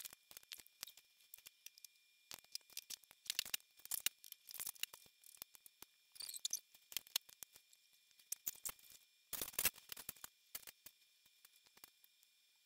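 Plastic LEGO bricks being handled and pressed together: faint scattered clicks and small scrapes, with a louder rustle about nine and a half seconds in.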